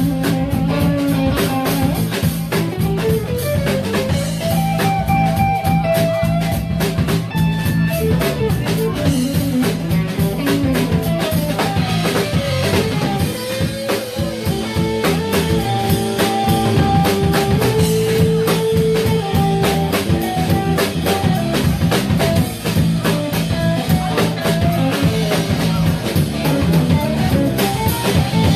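A live instrumental quartet playing: a drum kit keeping a steady beat with cymbals, electric bass and guitar, and a melody line moving over the top.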